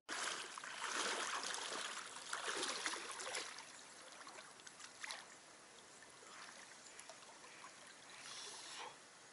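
Water sloshing and splashing as a person wades waist-deep into a river, louder for the first few seconds and then fainter. There is a short splash about five seconds in and another near the end.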